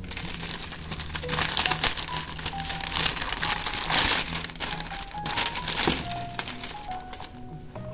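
Packaging being unwrapped and crumpled by hand, a dense crinkling and crackling that comes and goes, loudest in the middle, over background music.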